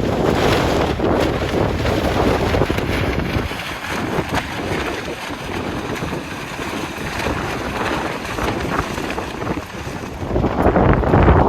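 Wind buffeting the microphone on a boat out on open water, a rough rushing noise that is heaviest at first, eases about three and a half seconds in, and builds again near the end.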